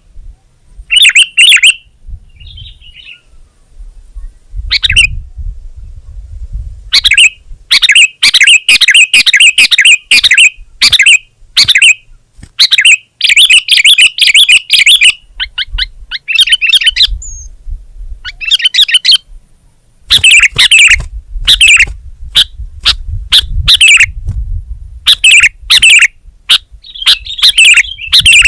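Sooty-headed bulbul (kutilang) singing loudly: rapid bursts of chirping phrases repeated again and again with short pauses between them, over a low rumble.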